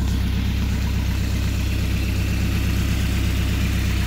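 Freshly rebuilt Mercruiser 170 3.7-litre inline-four marine engine idling steadily at about 750 RPM, its exhaust run through a makeshift wooden muffler.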